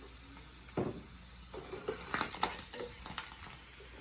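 Egg and bacon frying in a pan with a faint sizzle, broken by a dull thump about a second in and then a run of utensil clinks and scrapes against the pan as the bacon goes in and is stirred.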